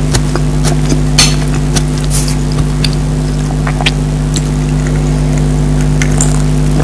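Eating sounds: scattered sharp clicks and crackles of chewing and of a utensil against the plate, over a loud, steady low hum.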